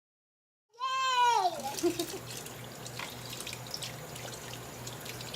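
Kitchen tap running into a sink, with small knocks and clinks. Just under a second in, a short high call sliding down in pitch is the loudest sound.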